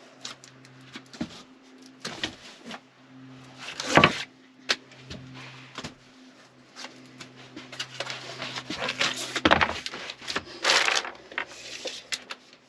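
Handling noise while measuring up a sound-deadener panel: irregular knocks and clicks, with a sharp knock about four seconds in and a stretch of rustling and scraping near the end, over a steady low hum.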